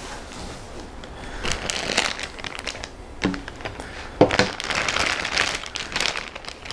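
Plastic bag crinkling in bursts as it is pulled off a radiator, with a single knock about four seconds in.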